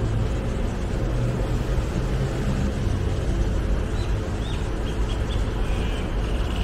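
Steady rumble of city road traffic, with a few short high chirps about four to five seconds in.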